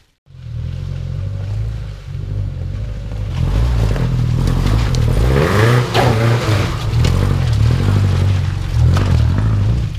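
Subaru's engine running hard under load on a rough off-road track, the revs stepping up and down, getting louder about three seconds in.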